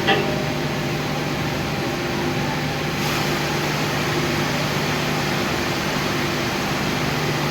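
Induction furnace melt shop running steadily: a constant low electrical hum over a broad machinery hiss, with a short knock just at the start.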